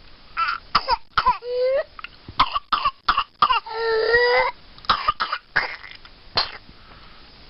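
Whooping cough (pertussis) coughing fit: a rapid run of short, harsh coughs, broken about four seconds in by a long high-pitched whoop on the in-breath, then a few more coughs.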